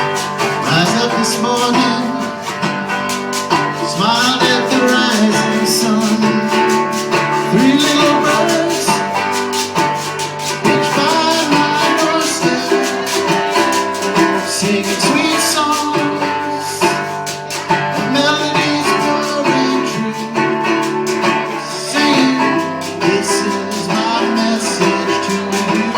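Live acoustic guitar strumming a steady reggae song, with a shaker-like rattle keeping the beat.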